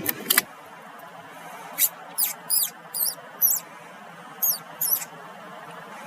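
A series of about seven short, high-pitched squeaks from an animal, each wavering up and down in pitch, in small groups over a steady low hiss.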